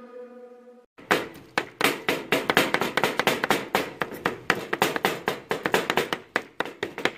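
The last notes of a guitar song ring out and fade, then about a second in, large knives start chopping food on plastic cutting boards: two people chopping at once in a fast, uneven run of sharp knocks, several a second.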